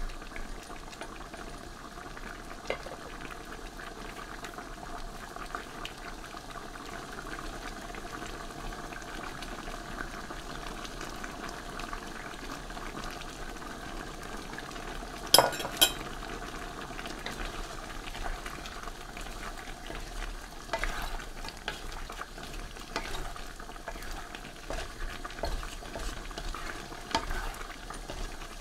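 Chicken stew simmering and bubbling in a pan. About halfway through there are two sharp knocks, and in the second half a wooden spatula stirs and scrapes through the stew.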